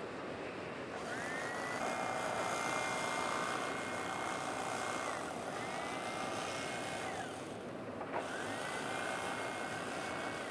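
Electric knife switched on three times, slicing through a layered salmon terrine: each time the motor whine rises as it spins up, holds steady, then drops as it stops. The first run lasts about four seconds, the second about two, and the third starts about eight seconds in.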